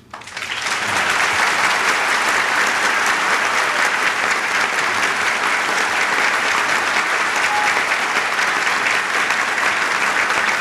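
Audience applauding: dense, steady clapping that builds up within the first second and holds at full strength.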